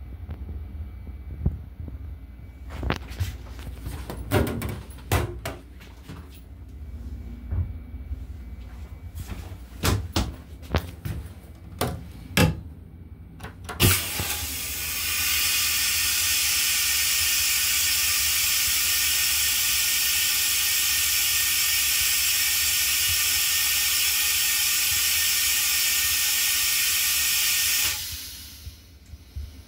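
Rail-car toilet flushing: a loud, steady hiss of rushing rinse water and air that starts about halfway through, lasts about fourteen seconds and tails off near the end. Before it, a low rumble with scattered knocks and clicks.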